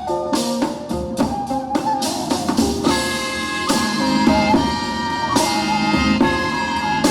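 Music: a pitched melody over drums, with quick strikes at first and a fuller sound from about three seconds in.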